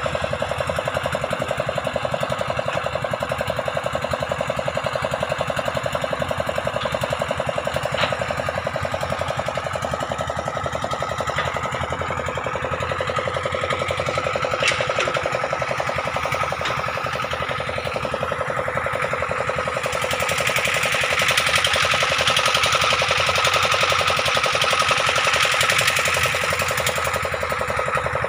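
Water-pump engine running steadily with a fast, even knocking beat. A broad hiss joins in about two-thirds of the way through.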